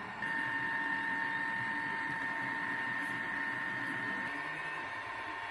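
Ender 3D printer running mid-print, a steady high whine over its fan noise, starting about a quarter second in.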